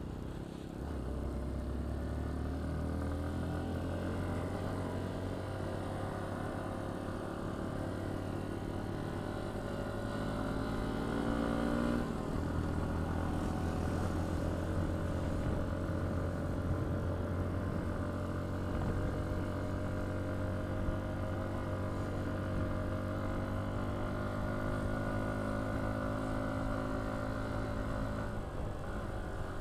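Hero XPulse 200's single-cylinder engine pulling the motorcycle up a mountain climb. Its pitch rises steadily for about ten seconds, shifts abruptly with a gear change about twelve seconds in, then runs on steadily.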